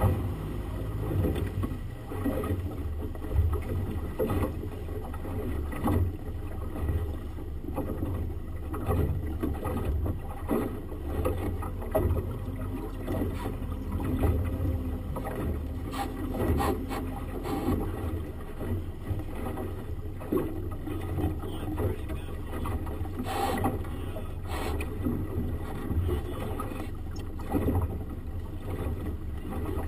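Outboard motor running steadily on a small motorboat under way, with water rushing and splashing past the hull.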